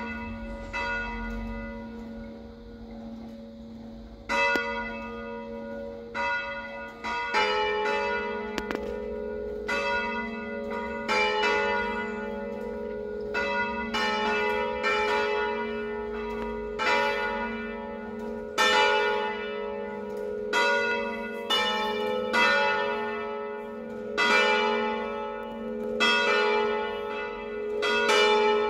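Two swinging church bells, tuned A3 and B3, ringing a festive peal. One bell strikes alone at first, every two seconds or so; about seven seconds in the second bell joins, and their strokes then come about once a second, each ringing on under the next.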